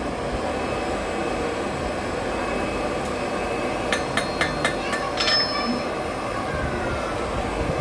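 Blacksmith's hand hammer striking hot iron on the anvil: a faint blow, then a quick run of about six light, ringing blows a little past halfway through.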